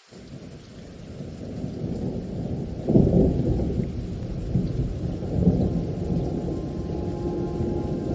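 Thunder rolling over steady rain: a deep rumble breaks in suddenly, grows to its loudest about three seconds in and keeps rumbling, with the hiss of rainfall beneath it.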